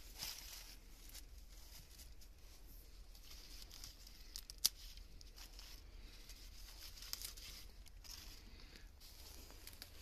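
Lettuce leaves being torn off the plants by hand, with the plastic bags around the soil crinkling; faint crackling throughout and one sharp snap about halfway through.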